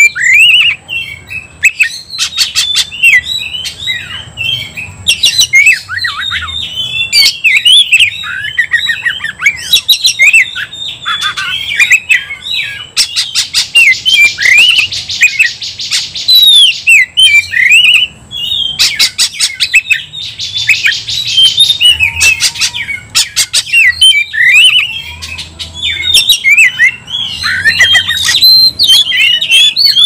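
Oriental magpie-robin singing a loud, rapid, varied song of chirps and whistles, broken twice by harsh rasping stretches, the first about halfway through and the second a few seconds later. This is the agitated, fight-ready song of a male kacer.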